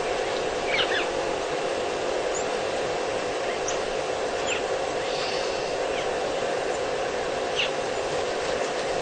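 Waterhole ambience: a steady background hum and hiss, with a few short, high bird chirps scattered through it.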